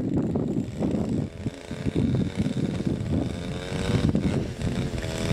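An engine running steadily, its hum clearest in the second half, with wind rumbling on the microphone.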